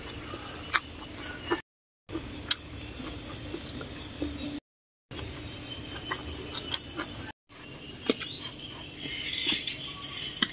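Close-up eating sounds: instant noodles with greens being slurped and chewed, with a few sharp mouth smacks. The sound is broken by brief dead silences where short clips are joined.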